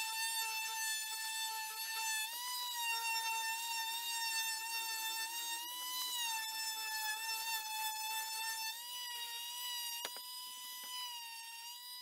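Electric palm sander running on a wooden board: a steady, high-pitched motor whine whose pitch lifts briefly now and then as the pressure on the board changes.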